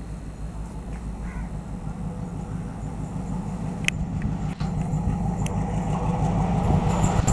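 ALCO-type WDM-3 diesel locomotive approaching, its engine's low, steady rumble growing gradually louder, with a few sharp clicks along the way.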